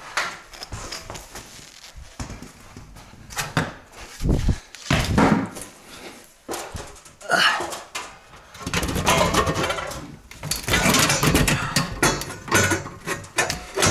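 Metal knocks, clatters and scraping of a sandwich chimney pipe being held and slid into place through a roof passage, with several longer scrapes in the second half.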